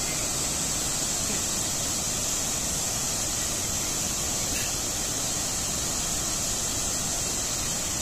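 Steady rushing roar of a large waterfall in full spate, even and unbroken, with a strong high hiss over it.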